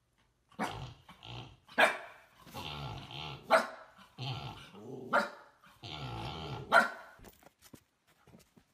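Husky-type puppy barking and growling in play: four sharp barks about a second and a half apart, with rough growly calls between them.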